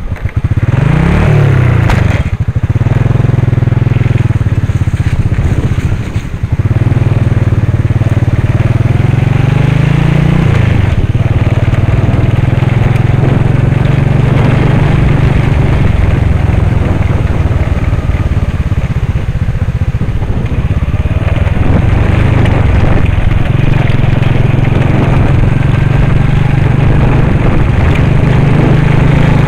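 Motorcycle engine pulling away from idle and revving up over the first second or so, then running steadily under way. About ten seconds in, the pitch climbs and then drops suddenly.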